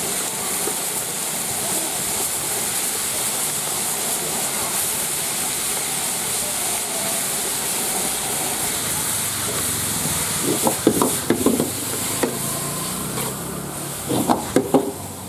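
Beef and sliced onions sizzling in a hot wok, a steady hiss, with the metal ladle clanking and scraping against the wok in two short spells, about ten seconds in and near the end.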